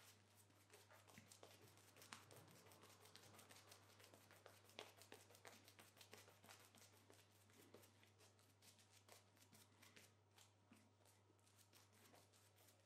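Shaving brush working wet shaving-cream lather on the face: a faint, dense crackle and swish of bristles and bursting bubbles that keeps going throughout.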